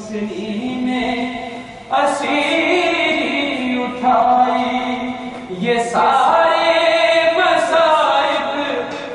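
A man chanting a Shia mourning recitation (azadari) from a book, unaccompanied, in long held melodic lines. New phrases begin about two, four and six seconds in.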